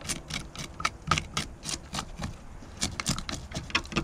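A knife scraping the scales off a crappie, in quick, short scratchy strokes about three or four a second, with a brief pause a little past the middle.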